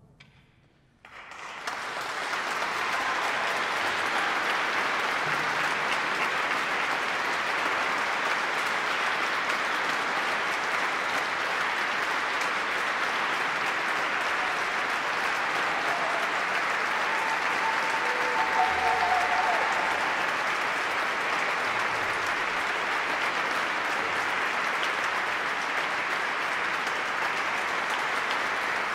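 The last sound of the music dies away, and after a moment of quiet an audience breaks into steady applause that keeps going.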